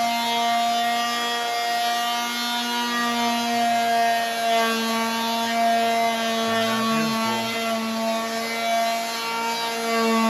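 Electric orbital palm sander running steadily, its pad sanding the old finish off a wooden door, a steady hum over the scrub of sandpaper on wood.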